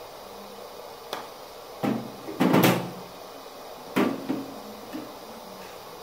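Several sudden knocks and bumps over a steady hiss, the loudest cluster about two and a half seconds in and another pair about four seconds in.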